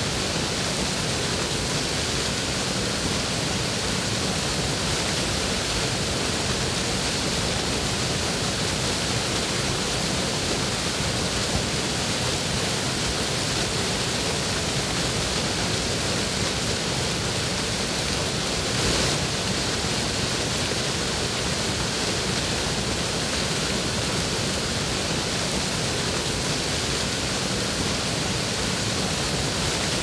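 Waterfall: the steady, unbroken rush of falling water, an even hiss, with one brief slight swell about two-thirds of the way through.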